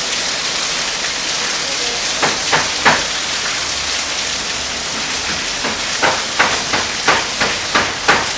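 Heavy rain pouring down, a steady loud hiss, with short splashing knocks on a wet floor: three a little after two seconds in, then a quicker run of about eight near the end.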